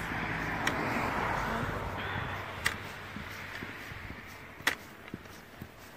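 A car passing by, its road noise swelling over the first couple of seconds and then fading away, with three sharp clicks about two seconds apart.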